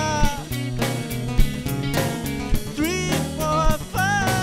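Live band music: a male singer belting over acoustic guitar and drum kit, holding a long note at the start, sliding up about three seconds in, and holding another long note near the end.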